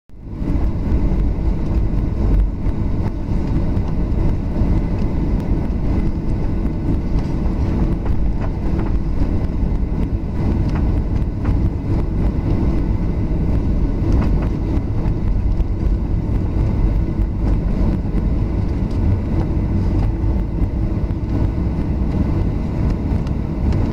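Cabin noise of a Boeing 737-800 taxiing: a steady low rumble from its CFM56 engines at taxi power and the wheels rolling on the taxiway, with a faint steady whine above it and a few light knocks.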